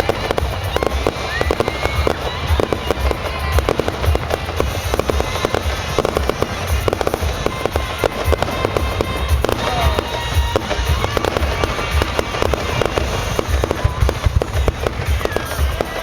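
Fireworks display: a rapid, unbroken run of bangs and crackles over a deep rumbling boom, with a few faint whistles from rising shells.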